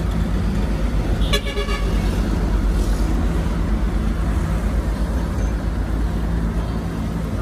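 Heavy diesel earthmoving machinery running steadily, with one short horn toot about a second and a half in.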